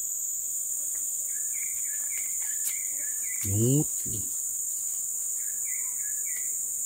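Forest ambience: a steady high-pitched insect drone, with a bird's short calls repeating now and then. About halfway there is a brief rising hum from a person's voice, the loudest sound.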